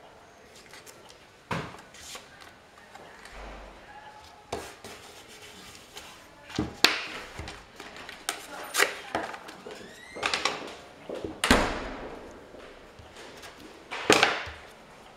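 Paper rustling and crackling as hands tear and handle torn collage pieces, with several sharp rustles and knocks against the tabletop, the loudest near the end.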